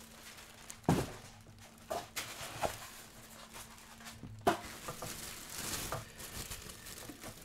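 Clear plastic wrapping crinkling and rustling as a crepe maker is handled out of its bag, with several light knocks from the appliance being moved, the clearest about a second in and about four and a half seconds in.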